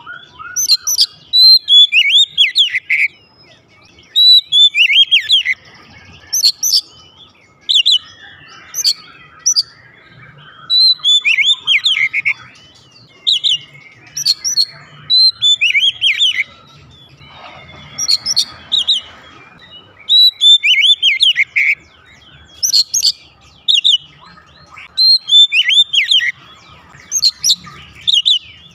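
Oriental magpie-robin singing loudly: repeated short phrases of clear whistles and quick downward-sweeping notes, one phrase every second or two with brief pauses between.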